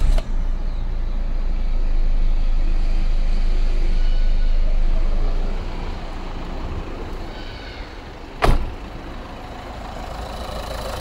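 Nissan Note's 1.5 dCi four-cylinder diesel engine running with a steady low rumble, louder for the first five seconds or so and then lower. About eight and a half seconds in, a car door shuts with a single bang.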